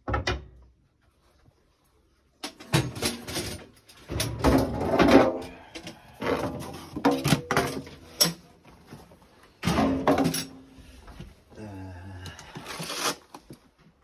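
A run of knocks and clatter from things being handled and moved about, with irregular sharp bangs.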